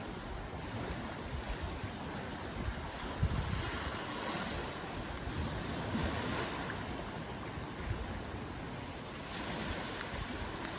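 Small waves washing in and breaking on a stony beach among old wooden pilings, swelling and easing every few seconds, with wind gusting on the microphone.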